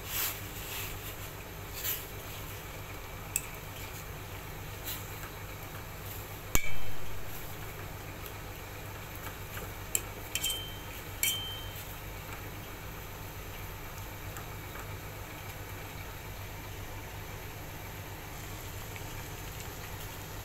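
A metal fork clinking and knocking against a stainless steel pan while pressing sweet potato leaves into boiling water. The knocks come now and then over a steady background noise, the loudest about six and a half seconds in, and a couple of later clinks ring briefly.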